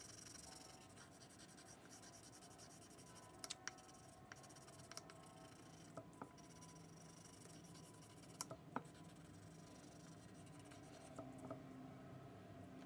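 Faint scratching of a wax crayon shading back and forth on paper, with a few sharp ticks scattered through.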